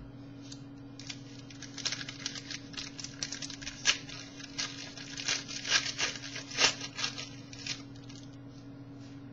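Trading cards being handled and flipped from one to the next: a run of quick, irregular rustles and flicks of card stock over a steady low electrical hum.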